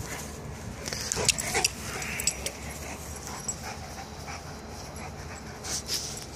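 Dogs panting and scuffling as a mastiff and a chocolate Labrador puppy play, with a few short clicks and scrapes about a second in and again near the end.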